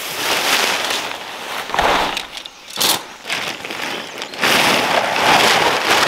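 Tent fabric rustling and crinkling as the tent is handled and pitched, in irregular swells of crackly noise.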